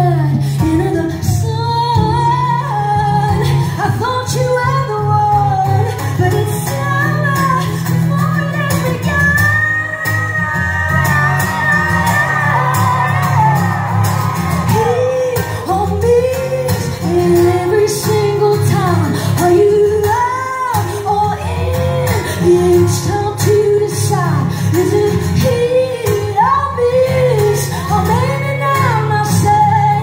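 A woman singing live while playing an acoustic guitar.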